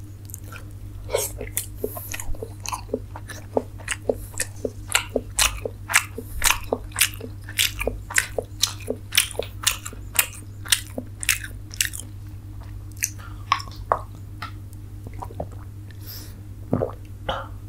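A person chewing a mouthful of food with the mouth open: a run of wet mouth smacks, about two to three a second, thinning out after about twelve seconds, over a steady low hum.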